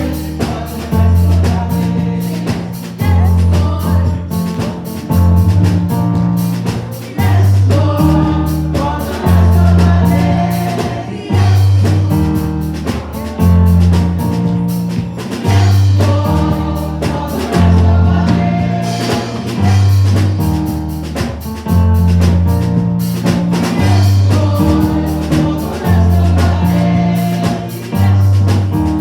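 Gospel music with singing over a drum kit and a deep bass line that moves note by note in a steady beat.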